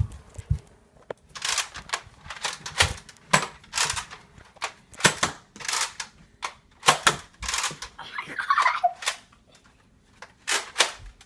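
Nerf foam-dart blasters firing: a string of sharp pops and clacks at irregular intervals, about a dozen in all, with a short vocal sound about eight and a half seconds in.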